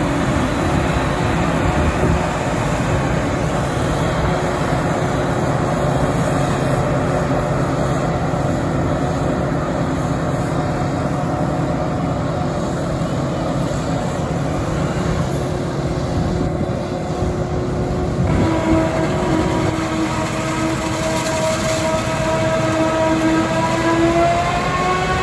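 Claas self-propelled forage harvester chopping standing maize, its engine and chopping drum running steadily under load, with a tractor and silage trailer running alongside. Near the end a whine rises in pitch.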